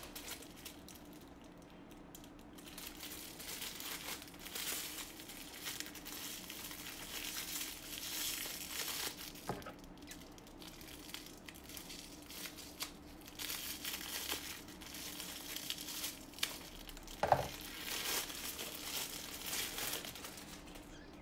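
Aluminium foil wrapper crinkling and rustling on and off as it is handled and peeled from a chocolate Easter egg, with one sharp knock about three-quarters of the way through.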